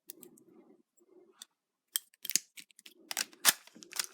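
Sharp plastic clicks and snaps from a toy gun and its plastic keys being handled, coming thicker from about halfway through.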